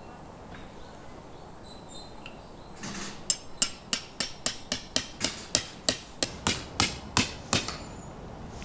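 A hammer driving a metal tent peg into the ground: about fifteen quick, ringing blows at roughly three a second, starting about three seconds in.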